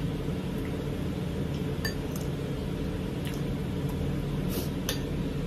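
Spoons and forks clinking against ceramic plates and bowls during a meal: about five light clinks, one ringing briefly about two seconds in. A steady low background hum runs underneath.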